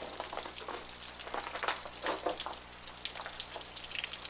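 Water dripping and pattering from melting ice and snow: an irregular crackle of many small ticks and drips.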